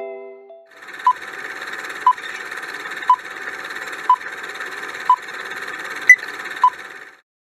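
Quiz countdown timer sound effect: a steady fast-ticking hiss with a louder tick about once a second, a sharp click near the end as the time runs out, then it cuts off suddenly.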